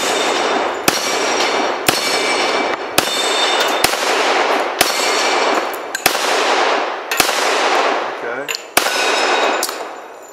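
Unsuppressed Para Ordnance Black Ops Combat 1911 in .45 ACP firing slow, steady shots, about one a second, each followed by a long echo. Steel targets ring after the hits.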